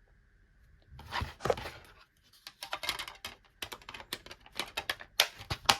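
Hands handling DVD cases and packaging: a rustle about a second in, then a quick, irregular run of small clicks and taps.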